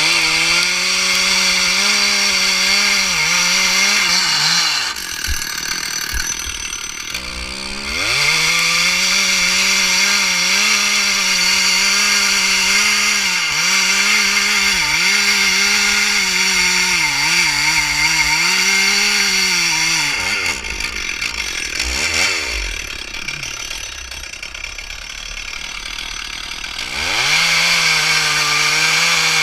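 Two-stroke chainsaw revving close by at full throttle, its pitch dipping and recovering as it loads up in the cut. It falls back to idle twice, around five seconds in and again from about twenty to twenty-seven seconds.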